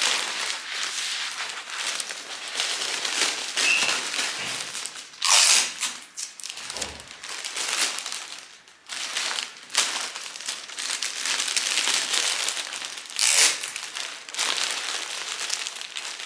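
Florist's cellophane wrapping crinkling and rustling as it is lifted and folded around a large bouquet, with two louder sharp rasps, about five seconds in and again about thirteen seconds in.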